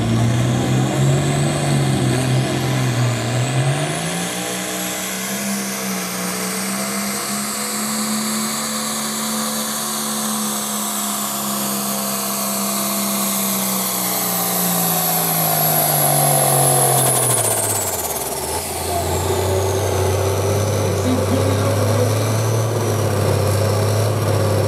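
John Deere farm tractor's diesel engine pulling the sled at full throttle. The engine note climbs a few seconds in and holds high with a high whistle over it. About three-quarters of the way through it winds down sharply, the whistle falling away, and settles into a low steady run.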